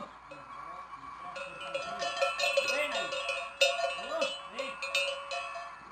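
Cattle bells clanging irregularly as the young bulls move about, starting about a second and a half in.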